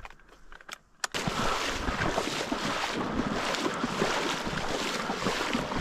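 Wading through shallow marsh water and reeds: steady sloshing and rustling with wind on the microphone, starting suddenly about a second in after a quiet start.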